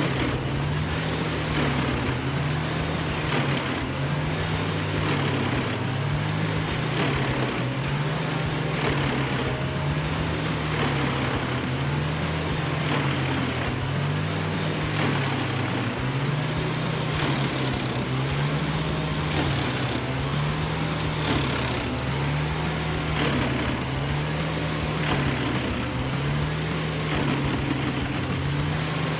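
Engine running steadily, with a low hum that swells and dips evenly about every two seconds.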